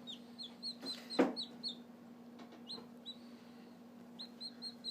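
Newly hatched chicken chick peeping: a string of short, high peeps that come quicker and more evenly near the end, about four a second. A single sharp knock about a second in.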